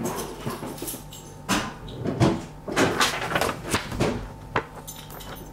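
Footsteps and handling knocks from a hand-held camera carried through a doorway: a run of irregular light thumps, bunched in the middle, over a faint steady hum.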